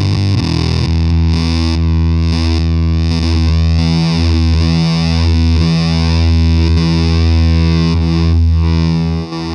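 Electric guitar played through a Devi Ever Stone distortion pedal: loud, heavily distorted notes held and sustained, shifting in tone a few times, with a brief drop in level near the end.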